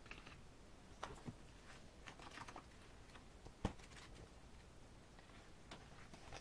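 Faint, scattered clicks and short rustles of an album package's paper and card contents being handled and taken out, with one sharper click about three and a half seconds in.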